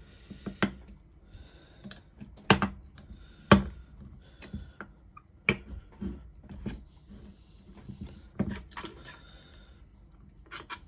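Irregular sharp metallic knocks and clinks as a long steel rod is worked against and through a brushless servo motor's housing to drive its rotor out. The loudest knocks come about two and a half and three and a half seconds in.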